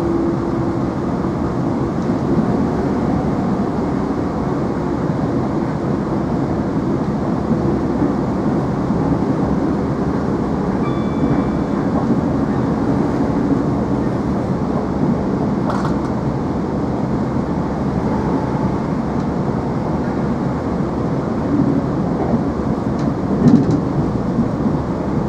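Cabin of a Chiltern Railways Class 165 diesel multiple unit running at speed: a steady hum of the underfloor diesel engine mixed with the rumble of the wheels on the track. There is a brief knock near the end.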